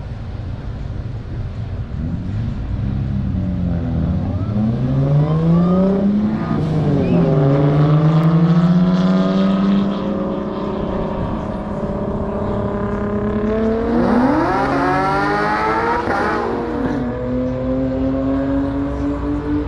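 Car engine accelerating through the gears: its pitch climbs, drops at an upshift about seven seconds in, climbs slowly, rises steeply near the end, then drops at another shift and climbs again.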